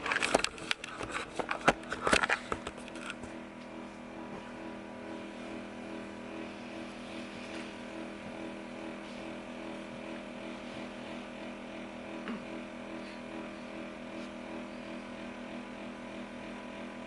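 Handling clicks and knocks for the first few seconds, then a steady mechanical hum made of several even tones.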